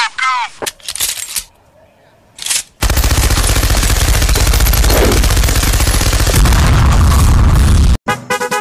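Machine-gun fire sound effect: one long burst of rapid automatic shots, about five seconds, beginning about three seconds in and cutting off suddenly.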